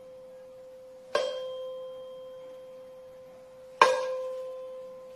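512 Hz tuning fork on a wooden resonance box, struck twice with a mallet, about a second in and again near four seconds. Each strike gives a short metallic clang, then a steady pure tone that slowly fades.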